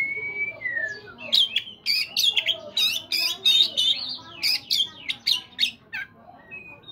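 Oriental magpie-robin singing: a clear, drawn-out whistle first, then a fast string of loud, sharp, varied notes for about five seconds, quieter near the end.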